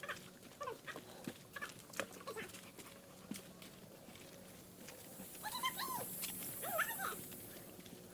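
Boxer dog whining in short, high, rising-and-falling whimpers: a run of them at the start and another about five and a half seconds in. The whining is the sign of a dog eager to get into the stream.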